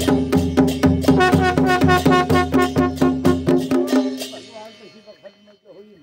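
Dance music with a fast, even drumbeat of about four beats a second over a held melody. It stops about four seconds in and fades to faint sound.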